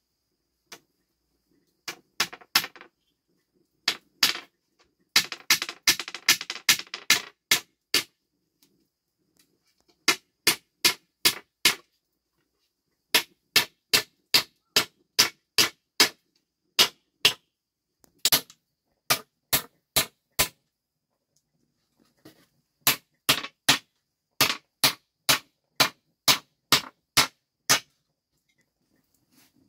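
Hammer driving nails into a wooden cupboard frame. Sharp blows come in steady runs of about two to three a second, with a fast flurry of light taps early on and a few short pauses between runs.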